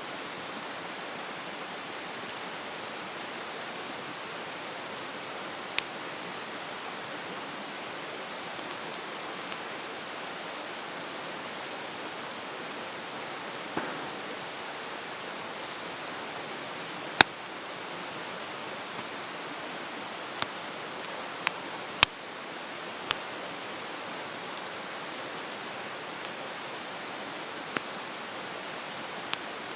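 Wood campfire burning with a steady hiss, broken now and then by sharp pops and crackles from the burning wood, the loudest two about 17 and 22 seconds in.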